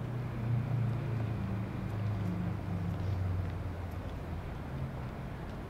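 A low engine drone, steady and then fading over the last second or two.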